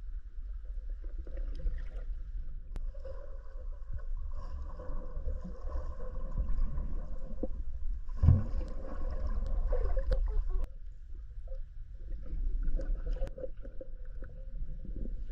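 Small boat's outboard motor running steadily on the water, with wind rumbling on the microphone.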